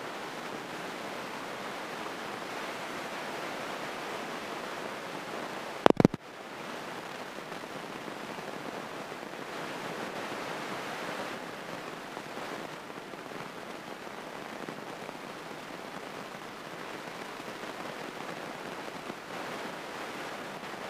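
Steady hiss-like rush of a small airplane's engine and propeller running on the ground, with a sharp double click about six seconds in.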